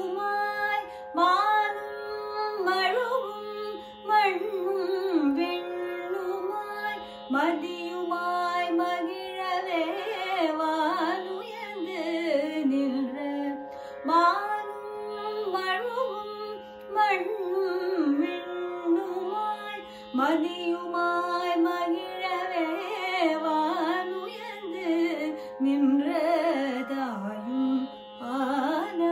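A woman singing Carnatic classical vocal music, her voice sliding and ornamenting between notes over a steady drone.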